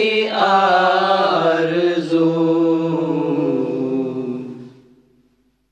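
A voice singing the last long-held phrase of an Urdu devotional madeh. The note wavers and then fades away, ending about five seconds in.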